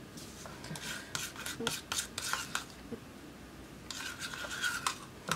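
Metal palette knife stirring and scraping thick paint around the inside of a plastic cup, with small clicks against the cup. The scraping comes in two bouts with a short pause between them.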